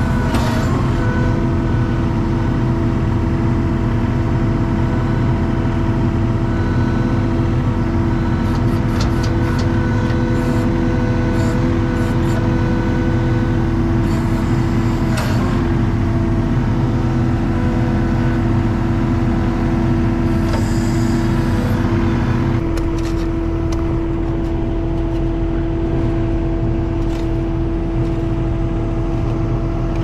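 ASV RT-40 compact track loader running steadily, heard from the operator's seat, with a few short clanks along the way. The engine's sound shifts slightly about three-quarters of the way through.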